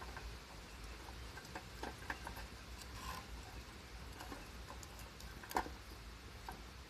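Small fatwood campfire crackling: scattered irregular pops and clicks, with one sharper snap about five and a half seconds in.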